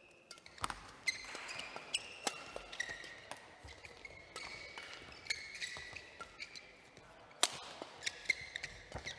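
Badminton rally: rackets striking the shuttlecock, a sharp crack every second or so, with the loudest hit about seven and a half seconds in. Between the hits, court shoes squeak on the floor.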